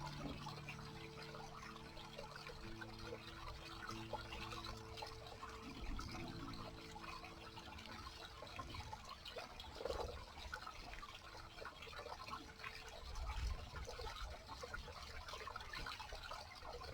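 Small man-made garden stream trickling and splashing over a little waterfall and weirs, with many small drips and splashes.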